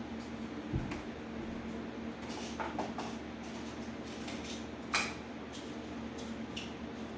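Small clicks and taps of hands handling the speaker parts while squaring up a freshly glued cone, with a soft thump about a second in and the sharpest click about five seconds in, over a steady low electrical hum.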